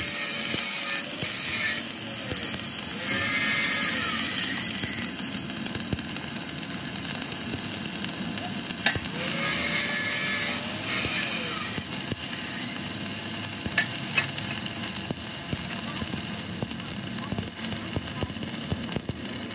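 Stick (arc) welding on steel plate: the electrode arc runs steadily, with a few sharp clicks about nine seconds and fourteen seconds in.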